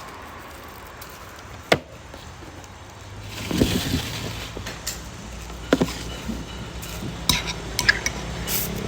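Tableware clattering: a sharp clink, then from about three seconds in a run of stirring clatter and scattered clinks of utensils against bowls, over a low steady hum.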